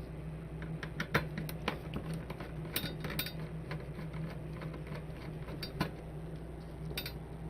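Scattered light clicks and metallic clinks of hands handling tools and the opened power supply's parts on a workbench, over a steady low electrical hum.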